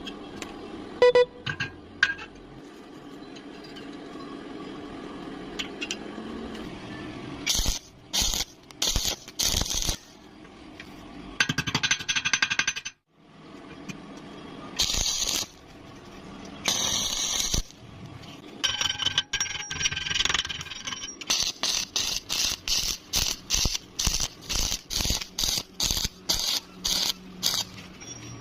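Metalworking noises: a low steady hiss for the first several seconds, then irregular bursts of harsh scraping, then a fast regular run of strokes, two or three a second, through the last third.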